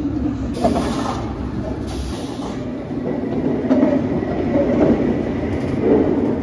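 Mystery Mine, a steel roller coaster (a Gerstlauer Euro-Fighter), passing: its mine-car-themed car rolls along the track with a steady wheel rumble and clatter, louder in the second half as it goes by, with a few short hisses.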